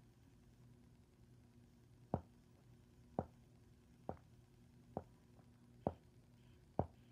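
A series of short, sharp taps, about one a second, starting about two seconds in, over a faint steady low hum.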